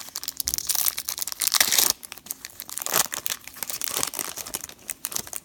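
Foil wrapper of a trading card pack crinkling and tearing as it is handled and ripped open, in a run of crackles with the loudest burst about a second and a half in.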